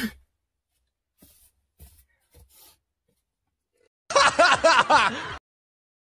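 The tail of a man's sneeze at the very start, then a few faint taps, and about four seconds in a loud, second-long burst of a person's voice.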